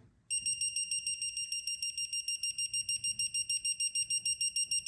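Digital torque-angle wrench beeping rapidly, about eight short high electronic beeps a second, as the bolt is turned through its angle toward the target of about 110 degrees on a crankcase bolt.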